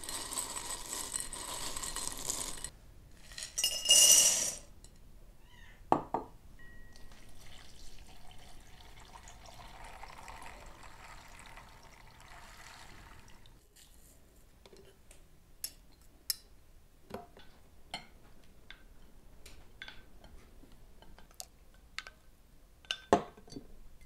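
Dry speckled beans rattling as a hand stirs them in a glass bowl, with a loud clatter about four seconds in. Then water is poured from a clay jug onto the beans in the glass bowl for several seconds, followed by scattered light clicks and clinks.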